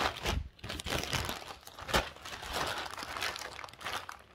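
Amazon shipping mailer bag being handled and turned over, its packaging crinkling and rustling in irregular crackles, with the sharpest crackle about two seconds in.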